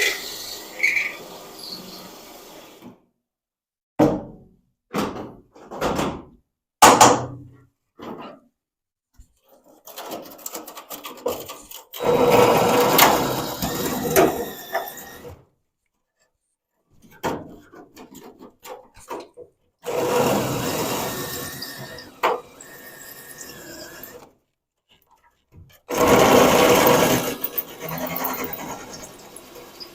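Electric drill cutting through car body sheet metal, drilling out the spot welds that hold the quarter panel. It runs in several short bursts, then in longer runs of a few seconds each with pauses between.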